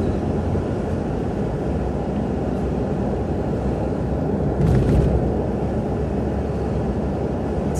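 Inside the cabin of a 2002 Nissan Xterra driving slowly: steady low road and engine noise, with one brief rattle a little under five seconds in. It is the high-pitched rattle the owner hears over small bumps, which he suspects comes from the front suspension's upper or lower ball joints.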